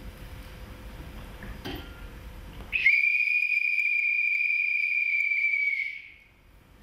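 Faint room noise, then about three seconds in a loud, steady, high-pitched whistle tone starts abruptly, holds for about three seconds, and sinks slightly in pitch as it fades out.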